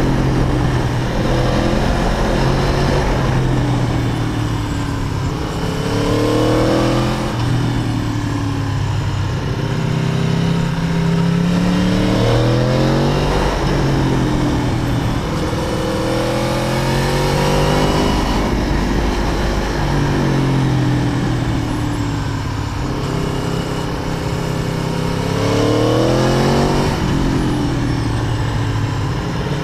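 Aprilia Tuono V4 APRC motorcycle engine on a ride, its pitch climbing as it accelerates and dropping back as it slows, several times over.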